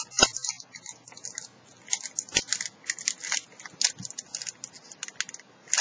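Foil wrapper of a Magic: The Gathering booster pack crinkling and tearing as it is pulled open by hand: a run of sharp, irregular crackles with a brief lull about a second in.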